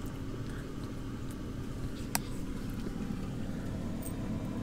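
Steady low hum of a Chefree AFW20 air fryer running, with a single sharp click about two seconds in.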